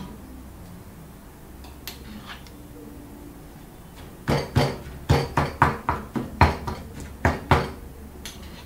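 Stone pestle pounding ground fish and red curry paste in a granite mortar: a run of strokes, about three a second, starting about four seconds in.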